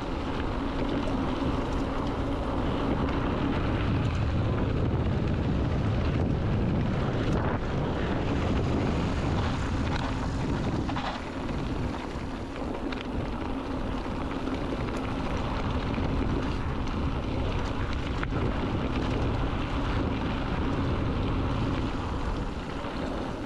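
Wind buffeting the microphone while riding an electric bike, with a steady low hum underneath.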